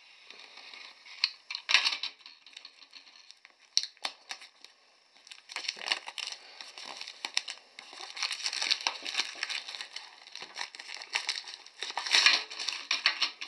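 Plastic shrink-wrap on a cardboard box being cut with a utility knife and pulled off: irregular crinkling and tearing with a few sharp snaps, sparse at first, then dense and continuous from about halfway through.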